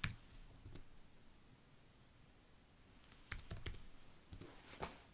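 Keystrokes on a computer keyboard: a few clicks at the start, a pause of about two seconds, then another short run of keystrokes about three to five seconds in.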